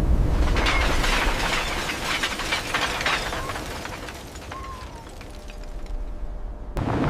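Demolition sound: a deep rumble under a dense run of crashing and crackling debris, which dies down over about four seconds, with a couple of short falling metallic squeals. Near the end a sudden cut brings in a fresh crash.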